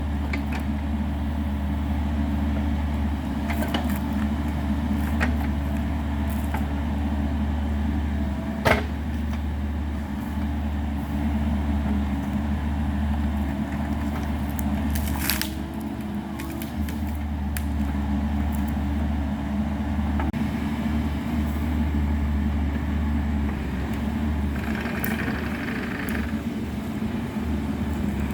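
Bobcat E42 mini excavator's diesel engine running steadily while at work, with a few sharp knocks, the clearest about nine and fifteen seconds in.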